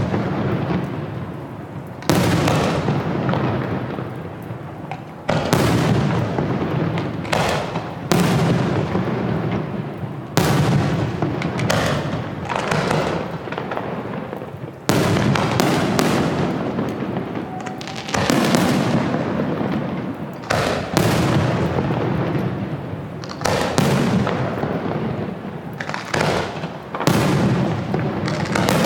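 Aerial fireworks shells bursting in a series of loud booms, one every one to three seconds, each followed by a long rumbling decay.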